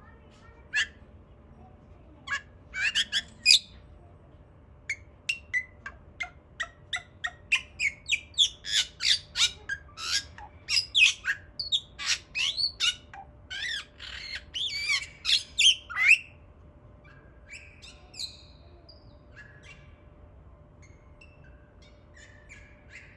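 A white bird giving a long run of short, hiccup-like chirps and squawks, each a quick sliding note, coming thick and fast through the middle and breaking off about two-thirds of the way through, followed by a few faint calls.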